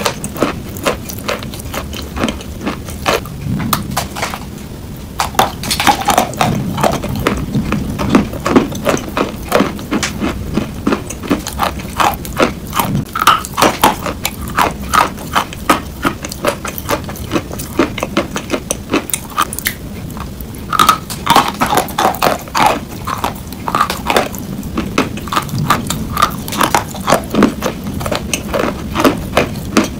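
Close-up crunching of chalk being bitten and chewed between the teeth: a dense run of sharp cracks and crackles, with several heavier spells of crunching.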